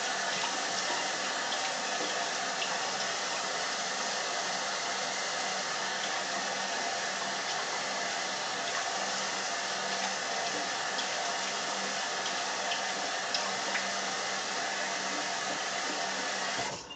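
Bathroom sink tap running steadily while a face is rinsed after a shave; the water is shut off suddenly near the end.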